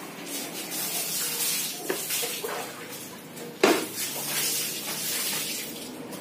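Hands rubbing and working over the head and hair during a massage, a rustling hiss, with one sharp knock about two-thirds of the way through.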